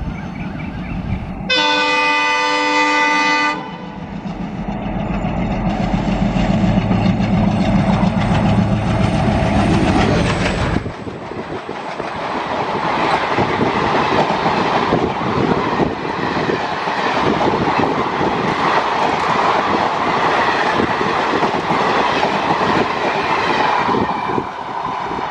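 WDG3A diesel locomotive sounding its horn, a chord of several notes held for about two seconds, then its engine rumbling deep and loud as it passes. From about ten seconds in the coaches follow, a steady rush of wheels clattering over the rail joints.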